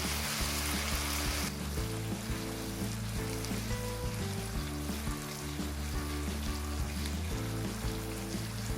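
Background music with a steady melody over chicken wings sizzling as they pan-fry; the sizzle drops quieter about a second and a half in.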